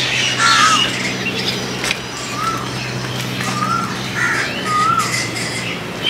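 Birds calling outdoors: a run of short, repeated chirping squawks about once a second, with higher chirps among them. A steady low hum runs underneath and stops near the end.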